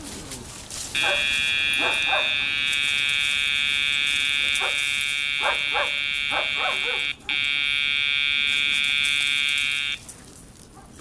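Steady electronic buzzer tone, held for about nine seconds with one brief break near the seven-second mark, sounding while the vibration pager of a deaf dog's remote training collar is held down as a recall cue.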